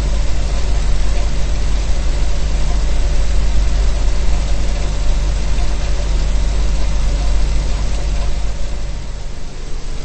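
Refrigerator running: a steady low hum with an even hiss over it, the hiss being the refrigerant flow noise of the refrigerator. It dips slightly near the end.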